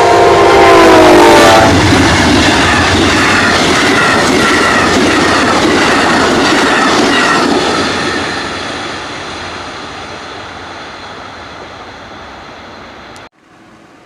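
Lake Shore Limited passenger train with three locomotives passing close by. Its horn chord is sounding and drops in pitch as the locomotives go past, stopping about two seconds in. Then the steady noise and clickety-clack of the cars going by fades away, until the sound cuts off suddenly near the end.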